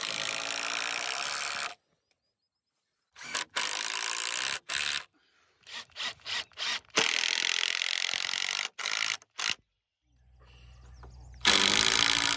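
Cordless drill driving long wood screws into wooden 2x10 framing boards. The motor runs in several bursts of a second or two each, with a few short trigger taps in between.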